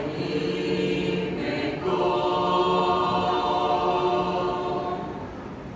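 Voices singing in harmony, unaccompanied, on long held notes. A fuller chord enters about two seconds in, is held steady, and fades away near the end.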